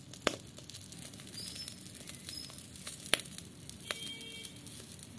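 Egg frying in oil in a metal ladle over wood embers: a soft, crackly sizzle, with two sharp pops, one just after the start and one about three seconds in.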